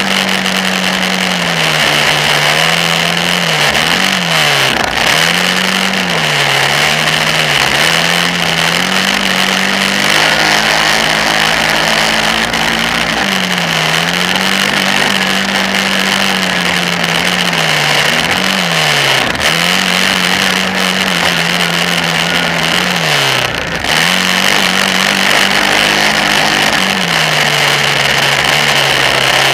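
Kawasaki Brute Force 650 ATV's V-twin engine running under the rider, its pitch repeatedly dropping as the throttle is eased and climbing again as it is opened through the track's jumps and turns, then settling lower near the end. A steady hiss sits over the engine throughout.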